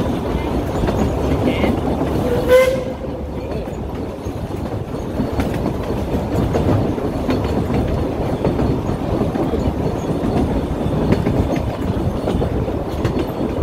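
Puffing Billy narrow-gauge steam train heard from a moving carriage: steady rumble and clatter of the wheels on the rails. A short pitched toot comes about two and a half seconds in.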